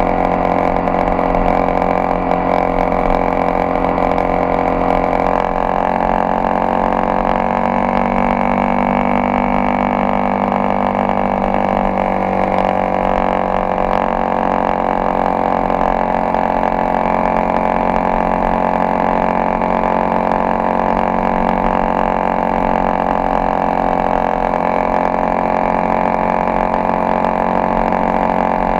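Honda XRE 300's single-cylinder engine running steadily as the motorcycle rides along, its pitch dropping a little about eight seconds in and rising again a few seconds later.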